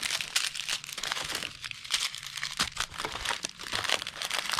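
Plastic packaging of slime-kit items crinkling and rustling as it is handled, with many irregular little crackles.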